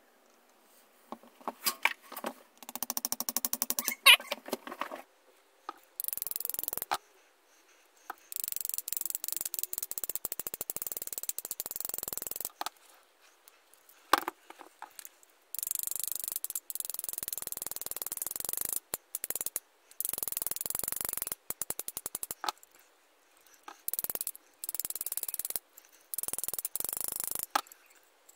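Metal bevel gears and the gear housing of an old hand drill being handled and fitted together by hand. A run of fast, even clicks comes about three seconds in, then stretches of dry, high rattling that start and stop abruptly.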